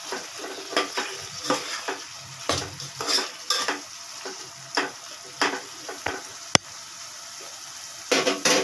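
Flat metal spatula stirring and scraping chicken pieces through onion-tomato masala in a metal pot, in irregular strokes over a steady sizzle of the frying masala. A single sharp tap about two-thirds of the way in, and a quick run of scrapes near the end.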